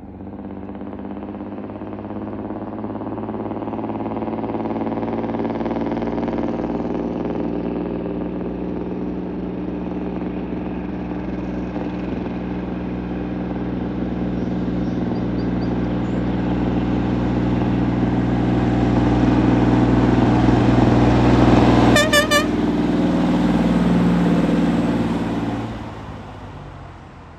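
1958 Kenworth log truck under load with three logs, its diesel engine pulling steadily through the back drop exhaust manifold, the engine note growing louder as it approaches and passes. It gives a short toot of the horn as it goes by, and the engine sound falls away quickly near the end.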